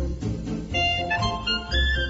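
Instrumental background music with a steady pulsing bass beat; a melody of held notes comes in about a second in.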